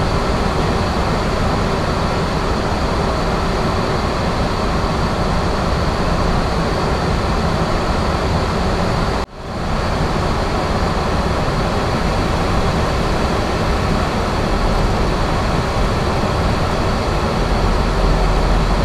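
Steady flight-deck noise of a Boeing 737-800 in flight: airflow, air conditioning and engine noise blended into one even roar. It cuts out for a split second about halfway through, then carries on unchanged.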